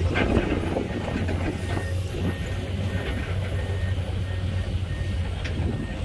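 Heavy diesel engines of a hydraulic excavator and a loaded dump truck running steadily with a low hum, with a crackly rumble over it.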